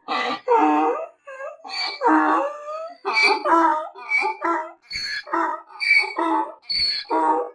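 Donkey braying: a long run of hee-haw calls, short pitched pulses that swing between a high, squealing pitch and a lower one several times a second.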